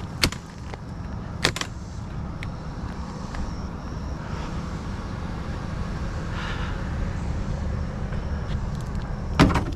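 Steady low rumble of a running vehicle engine, with a sharp click just after the start and another about a second and a half in.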